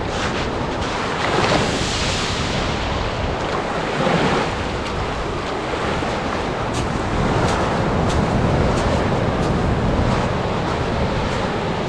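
Atlantic surf washing onto a sandy beach, a steady rush that swells a few times, with wind buffeting the microphone.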